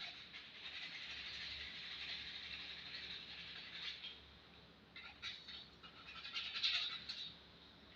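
Sandpaper rubbed by hand along a wooden axe handle: a steady scratchy rasp for about four seconds, then a few shorter, separate strokes.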